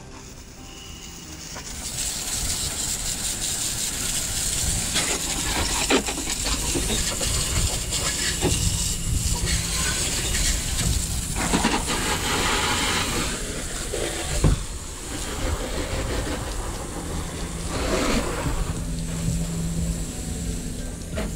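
Garden hose spray nozzle jetting water onto a truck's wheel well, tyre and body panels: a steady hissing spray that shifts as the stream moves over different surfaces. It starts quieter and grows louder about two seconds in.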